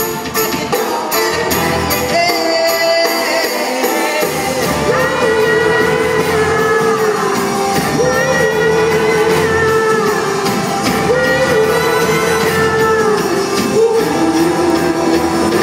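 Live singing over an orchestral band: a vocalist holds long notes with a wavering vibrato over a steady, full backing.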